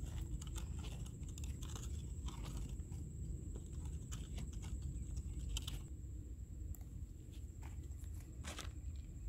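Light crunching and scattered small clicks of dry dirt and grit under the wheels of a small handmade wooden toy cart as it is pulled along the ground, over a low steady rumble.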